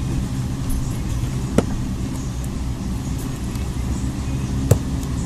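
Steady low mechanical hum, with two sharp clicks, one about a second and a half in and a louder one near the end.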